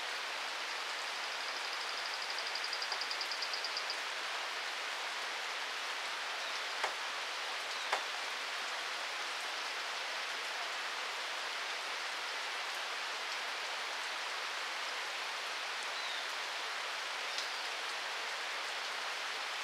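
Steady, even hiss of light rain. A fast, high-pitched trill runs through the first few seconds, and two sharp clicks come about seven and eight seconds in.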